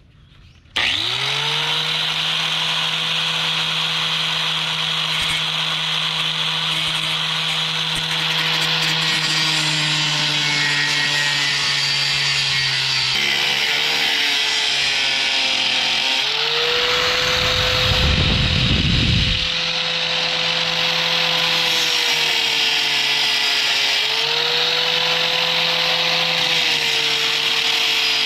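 A Warrior 4-1/2 inch angle grinder starts up about a second in and runs steadily. It grinds the formed end off a steel throttle linkage connector on a diesel injection pump lever. Its whine sags and climbs back several times as the disc is pressed into the metal, with a brief low rumble about two-thirds of the way through.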